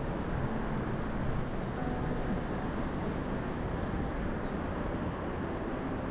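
Steady wind on the microphone: a continuous low rushing, with a faint steady hum underneath.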